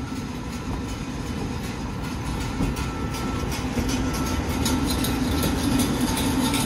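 Alstom TGV Duplex high-speed train pulling out of the station, a steady hum and the running rumble of the double-deck cars growing louder as it gathers speed. Clicks from the wheels on the track come thicker from about halfway.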